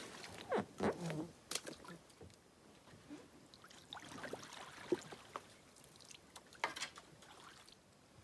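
A solo canoe being launched and paddled away: faint water sloshing and dripping, with several sharp knocks against the Old Town Pack Canoe, most of them in the first second and a half.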